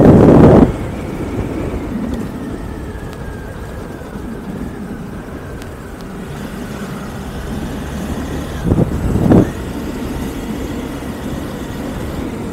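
Honda Bros 160 single-cylinder engine running steadily while riding at city speed, with wind rushing over the microphone. Loud buffeting right at the start and two shorter gusts about nine seconds in.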